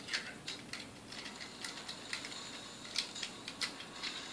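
Irregular small clicks and scratchy ticks from hands working small metal parts at the rear of a Sunbeam Mixmaster Model 11 stand mixer.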